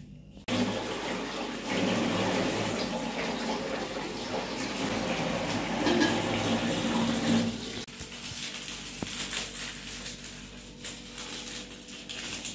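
Kitchen tap running into a plastic colander of greens as they are rinsed. The water starts suddenly just after the beginning and stops about eight seconds in.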